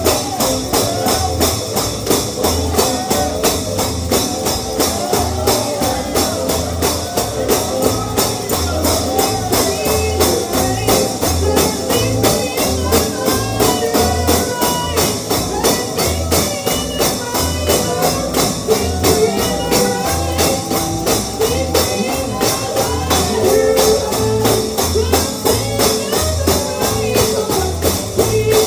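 Up-tempo bluegrass gospel music with a tambourine jingling in a steady, driving rhythm over a regular bass pulse.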